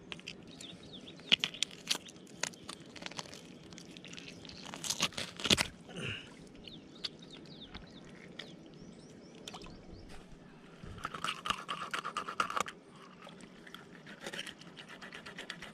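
Irregular crunching and scraping clicks of freshly caught tilapia being cleaned by hand, with the gills being torn out.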